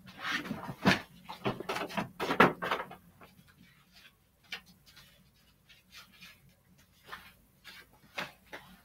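Household items being handled and moved about: a quick run of knocks, clatter and rustling for about three seconds, then scattered fainter knocks and clicks.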